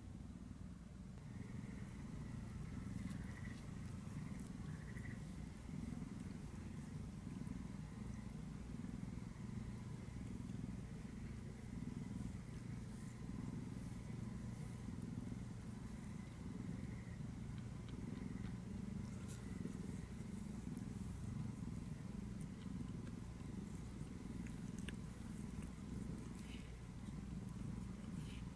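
Domestic cats purring at close range: a steady, low, evenly pulsing rumble, with a few faint ticks.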